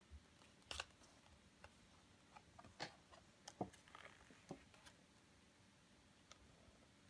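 Faint rustles and clicks of a pop-up book's pages being handled and turned, with scattered short paper taps, busiest in the first five seconds.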